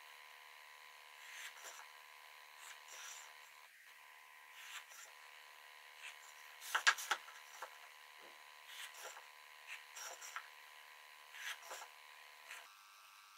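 Pine boards being handled and pencil-marked on a workbench: faint scattered taps, knocks and scrapes, with a louder cluster of knocks about seven seconds in, over a steady faint hum.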